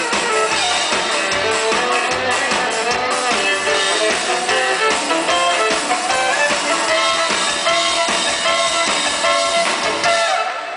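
Live gypsy-pop band of violin, acoustic guitar, upright double bass and drum kit playing a tune together, which ends about ten seconds in.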